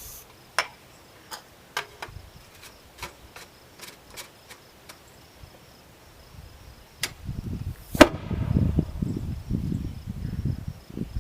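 A string of about a dozen sharp clicks from the potato cannon's spark igniter, then about eight seconds in a single loud bang as the hairspray-fuelled combustion potato cannon fires. Low rumbling noise follows the shot.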